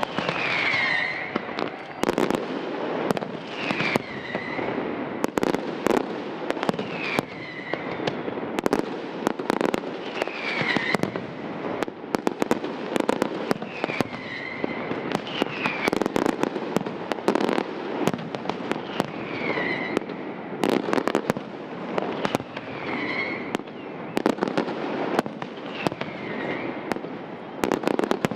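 Aerial fireworks display: rapid bangs and crackling from bursting shells, with short falling whistles every second or two.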